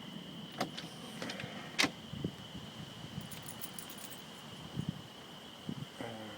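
A few sharp light clinks and taps, scattered and irregular, the loudest about two seconds in, over a steady thin high-pitched drone.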